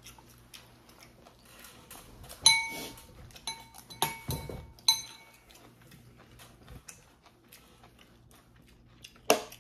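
Metal spoon and chopsticks clinking against a ceramic bowl while eating: a few sharp, ringing clinks in the first half, with quieter stretches between. One louder sharp knock near the end.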